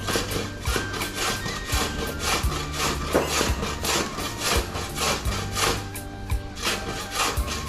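Carrot being grated by hand on a grater: quick, even rasping strokes, one after another.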